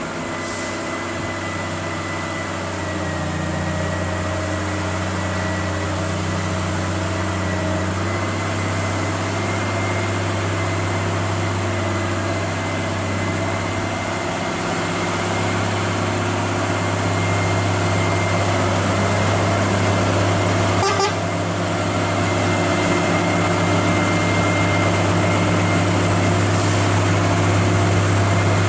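Heavy truck diesel engine running steadily under load, with a thin steady whine above it and growing gradually louder. A brief sharp click comes about two-thirds of the way through.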